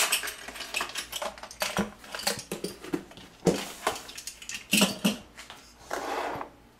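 Clinks and knocks of a stainless steel mixing bowl and glass spice jars being handled on a kitchen counter: an irregular string of short sharp clicks, with a brief scrape near the end.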